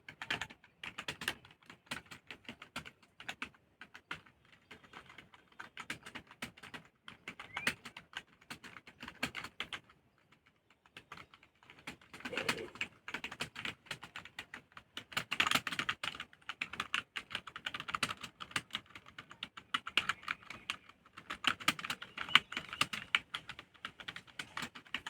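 Keystrokes on a keyboard, rapid and irregular as in touch-typing practice, with a short pause about ten seconds in and faster, louder typing after it.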